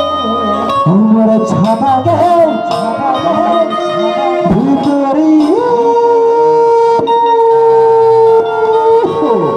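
Chhattisgarhi folk song music: a winding melody over drum strokes, which settles about halfway through into one long held note.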